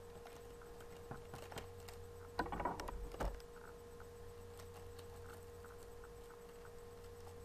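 Faint rustling and crinkling of a small plastic blind-bag packet being handled, in a short spell about two and a half seconds in, with a few light clicks just before it. A steady low hum runs underneath.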